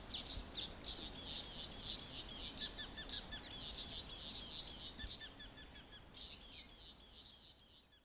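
Eastern golden weaver chattering during its upside-down nest display: a dense run of short, high chirps and buzzy notes, with small repeated lower notes under them. The chatter thins out after about six seconds and fades away at the end.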